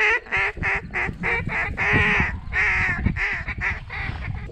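A fast run of loud duck quacks, about a dozen in a row, with one longer drawn-out quack near the middle.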